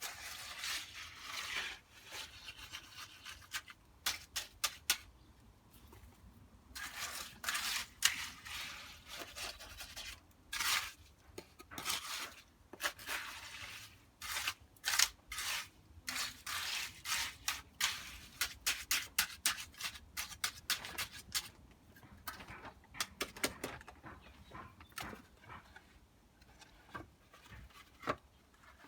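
A tool scraping and spreading wet concrete mix in repeated irregular strokes, each a fraction of a second to about a second long.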